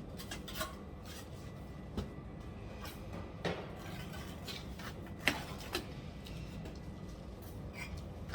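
Scattered clinks and knocks of bricks and a steel trowel being handled while bricks are set out, over a steady low background hum. The sharpest knock comes about five seconds in.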